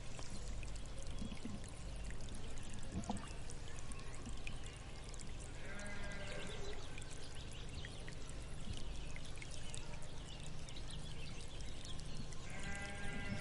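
Sheep bleating twice: one call about six seconds in and another near the end, over a steady rushing background noise.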